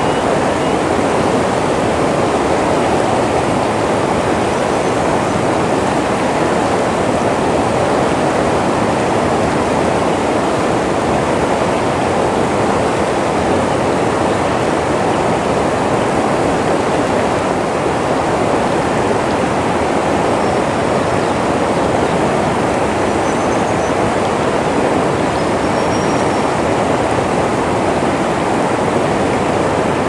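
Shallow river rapids rushing steadily over a rocky bed, a loud, even wash of water.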